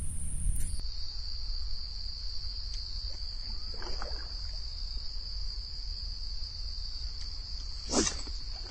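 Insects trilling steadily on one high note, over a low rumble. There is a short knock about four seconds in and a louder one near the end.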